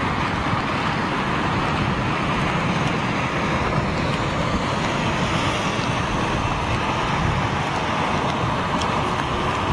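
Heavy rain battering down in a storm: a steady, even rushing hiss.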